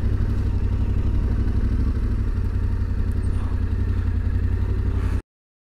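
Motorcycle engine running steadily at low speed as the bike rolls slowly, a low, even rumble that cuts off abruptly about five seconds in.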